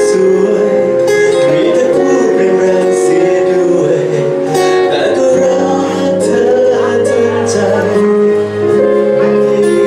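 Live band playing a pop song at a sound check, with plucked guitar and a singing voice over sustained chords.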